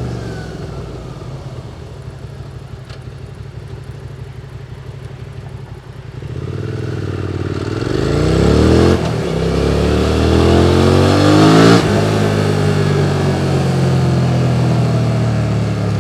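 QJ Motors SVT650X parallel-twin engine through an Arrow Racetech slip-on exhaust. It runs at low revs for about six seconds, then revs up as the bike accelerates. The pitch breaks sharply at a gear change about nine seconds in, climbs again, drops near twelve seconds, and then runs steadily.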